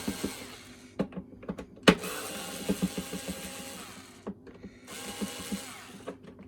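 Small cordless drill-driver running in three short bursts, with sharp clicks and knocks between them, a loud one about two seconds in, as it works fasteners out of a vacuum cleaner's plastic housing.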